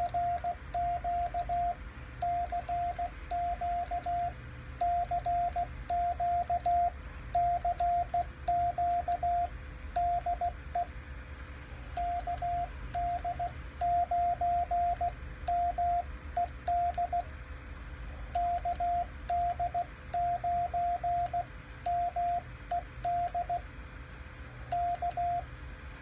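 Morse code sidetone from a radio transceiver, a single beep keyed on and off in quick dits and dahs by a Vibroplex iambic paddle sending a CQ call over and over. The paddle's contacts click sharply throughout.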